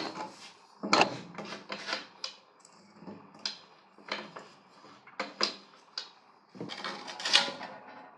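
Irregular clacks and knocks of parts and tools being handled and set down, with a longer rattle near the end.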